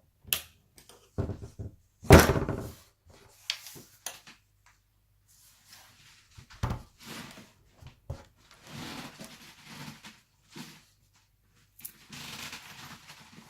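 Handling laptop parts during reassembly: irregular knocks and plastic clicks, with a heavy thud about two seconds in and another a few seconds later, and stretches of scraping and rustling.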